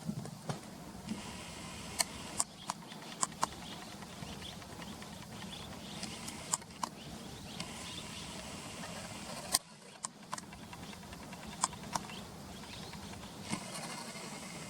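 Steady outdoor background of chirring insects over a low hum, broken by scattered short, sharp chirps or clicks at irregular intervals.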